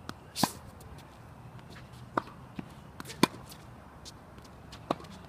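Tennis ball being struck by rackets and bouncing during a rally: four sharp pops roughly one to two seconds apart, the loudest a little after three seconds in, with fainter ticks between.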